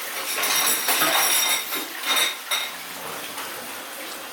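A beagle puppy making a racket: a run of hard clinking and rattling with a faint metallic ring. It is loudest from about half a second to a second and a half in, with a second burst around two seconds in.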